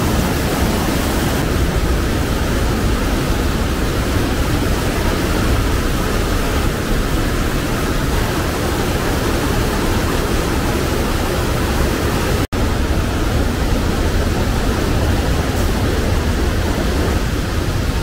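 Mountain stream rushing loudly, swollen after several days of rain, a dense steady roar of water. It breaks off for an instant about two-thirds of the way through.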